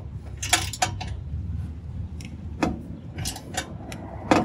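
Hand wrenches working an exhaust flange bolt and nut: a few separate, irregular metallic clicks and clinks as the bolt is tightened.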